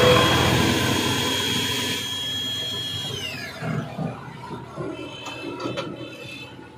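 Fanuc Drill Mate Model-T CNC drilling centre running with a high, steady motor whine that winds down, falling in pitch, about three seconds in. Irregular mechanical clunks and clicks from the machine follow.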